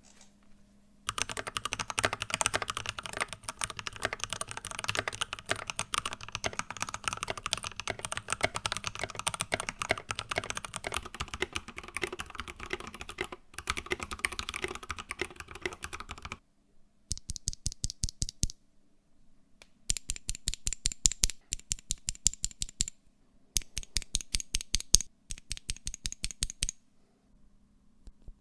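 Mechanical keyboard fitted with Gateron Pro Silver linear switches being typed on: fast continuous typing for about fifteen seconds. After a short pause come four runs of rapid, evenly spaced keystrokes with brief gaps between them.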